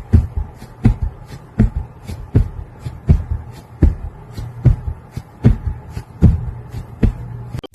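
Rhythmic low thumps, about four every three seconds, each with a weaker beat just before it, over a steady low hum.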